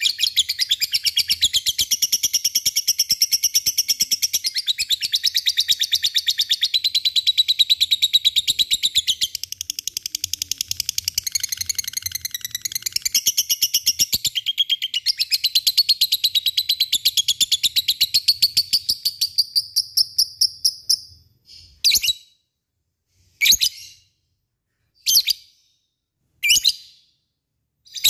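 Lovebird singing its long chattering trill ("ngekek"), a rapid run of shrill stuttering notes held unbroken for about twenty seconds, then broken into four short bursts with pauses between.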